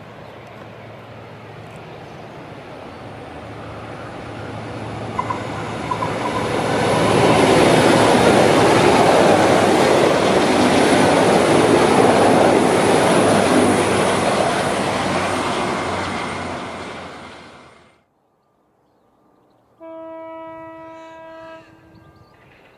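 V/Line VLocity diesel railcar set passing at speed: the rumble of its engines and wheels on the rails swells as it approaches, runs loud for several seconds as it goes by, then fades. Near the end, after a cut and a moment of quiet, a short steady multi-note tone sounds for about a second and a half.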